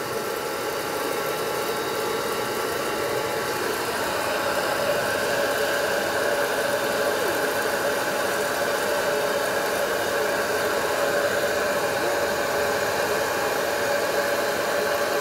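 Electric hot-air popcorn maker running, its fan blowing a steady whir. It grows a little louder about four seconds in.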